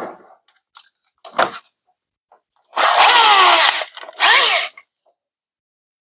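Corded electric drill run free in two short bursts, the first about a second long and the second about half a second, its motor speeding up and slowing down as the keyless chuck is spun tight on a drill bit. A brief clatter of handled tools comes a little before.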